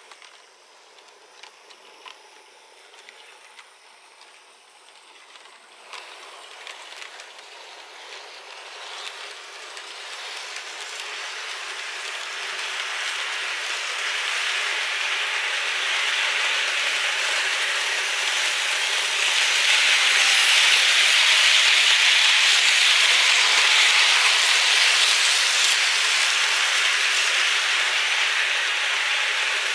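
Märklin model train running on its track: a few light clicks at first, then a steady rushing hiss that grows louder over about fifteen seconds and stays loud.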